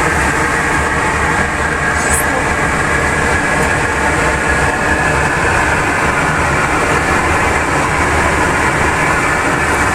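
Steady, loud rushing noise of an Airbus A320 cockpit in flight.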